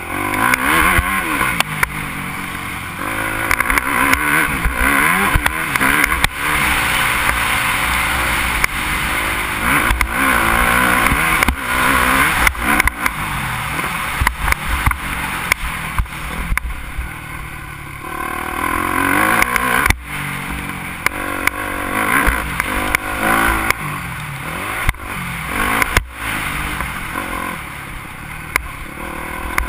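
Motocross bike engine under hard riding, revving up and falling back again and again as the rider accelerates and shifts around the track, with wind rushing over the microphone. A few sharp knocks come through as the bike hits bumps, the clearest about two-thirds of the way in.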